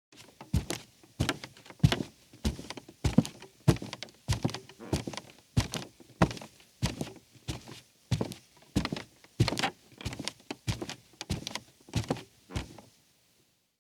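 A woman's bare feet walking at a steady pace on a creaky rug: about twenty footsteps, each a soft thud with the rug creaking underfoot, stopping shortly before the end.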